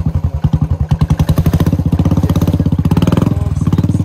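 Royal Enfield Bullet 350's single-cylinder engine running with a steady, even thump as the motorcycle is ridden slowly through mud.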